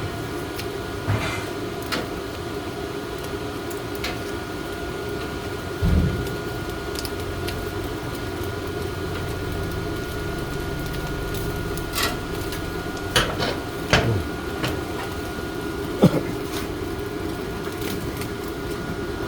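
Steady mechanical hum like a running fan, with a faint steady tone over it, and a few short clicks and knocks, the heaviest a low thump about six seconds in.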